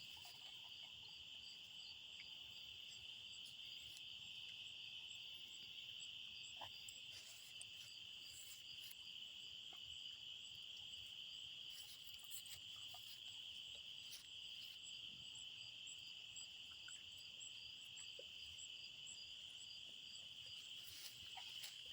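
Faint, steady chorus of night insects: a continuous high trill with a second insect's evenly repeating chirps above it, and a few scattered soft clicks.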